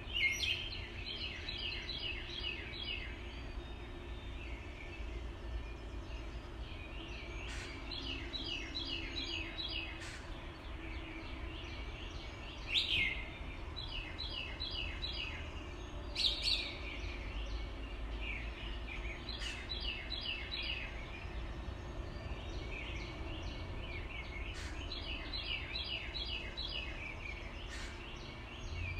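Water spilling over a low river dam, heard as a steady low rush. Over it a songbird sings a rapid phrase of six to eight high notes about every six seconds, with a few louder sharp calls.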